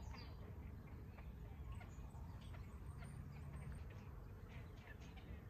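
Faint bird calls, short chirps scattered throughout, over a low steady rumble of outdoor ambience.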